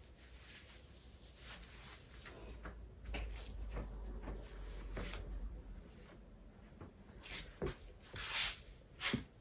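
Clothing rustling and rubbing as a shirt is tucked into the waistband of knit trousers and smoothed down by hand, with a few louder swishes near the end.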